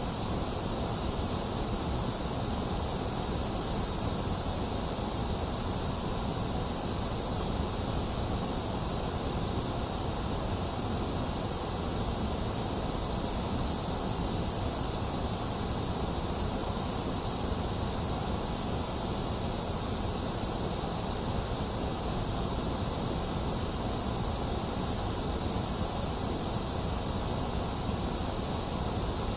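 Box fan running mixed with steady rain: a constant, unchanging rush of noise with a hiss in the highs and a low rumble beneath.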